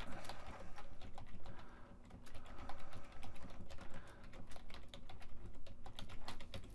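Typing on a computer keyboard: a quick, irregular run of key clicks with a short lull about two seconds in.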